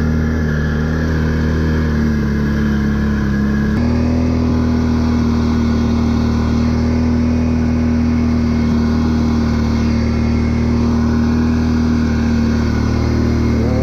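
Can-Am 6x6 ATV's V-twin engine running at a steady speed under way, its note stepping abruptly slightly higher about four seconds in.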